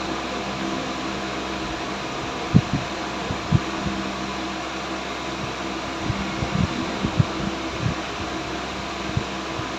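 Steady fan hum with scattered light knocks and clunks as an ignition coil is worked out of the engine. Two of the knocks stand out, about two and a half and three and a half seconds in, and more follow near the end.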